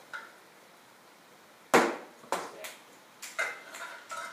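A series of hard knocks and clatters: one loud bang nearly two seconds in, then several lighter knocks close together.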